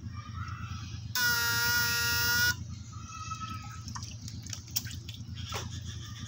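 Homemade eight-transistor electrofishing shocker buzzing with one steady tone for about a second and a half while it is switched on with its probes in the pond, the discharge that stuns the fish. Fainter short buzzes and small water splashes and drips are around it.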